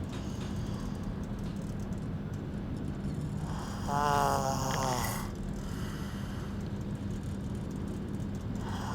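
A sleeping person snoring: one drawn-out, rasping snore about halfway through, over a steady low rumble.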